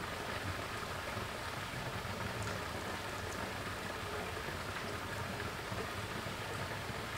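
Creek water trickling over and between rocks, a steady hiss.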